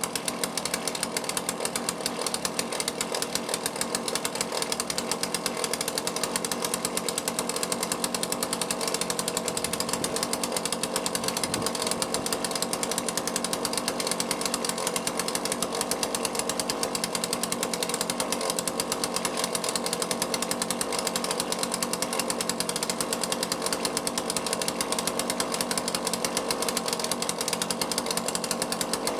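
Small two-stroke chainsaw engine running at a steady speed, its Walbro carburettor freshly rebuilt and adjusted.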